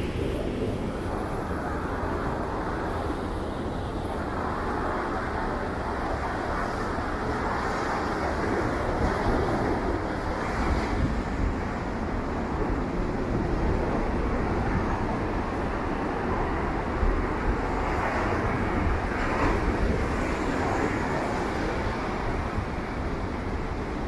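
Heavy surf breaking, mixed with road traffic, with wind rumbling on the microphone. The noise swells and eases every few seconds.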